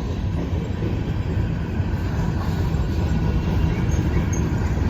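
Norfolk Southern manifest freight train rolling slowly past as it slows down, a steady low rumble.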